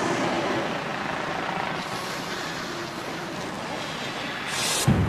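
Steady city traffic noise: vehicles running, an even rumble and hiss, with a short sharp burst of noise near the end.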